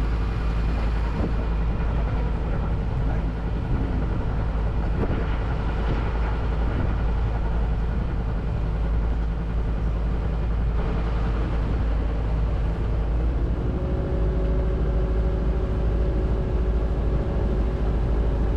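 Tour boat's engine running under way, a steady low rumble mixed with rushing water and wind noise. About thirteen seconds in, a steadier, higher engine tone joins in and holds.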